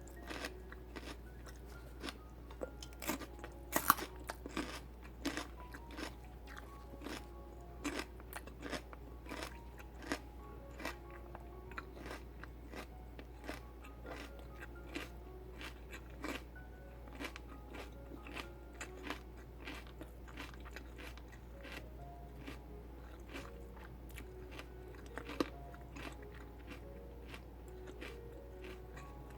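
Raw celery stalks being bitten and chewed close to the microphone: crisp, watery crunches, several a second at first and thinning out later, with a loud bite near the end.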